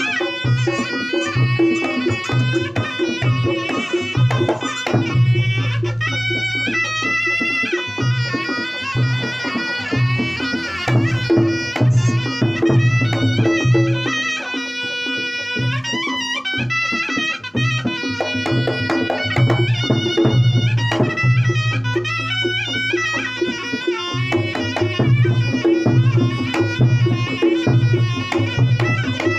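Reog Ponorogo music: a slompret (Javanese double-reed shawm) plays a wavering, ornamented melody over a steady rhythm of drums and pitched percussion.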